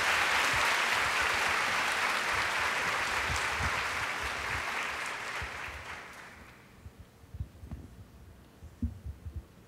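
Audience applauding with dense, steady clapping that fades out about six or seven seconds in. A few low thumps follow near the end.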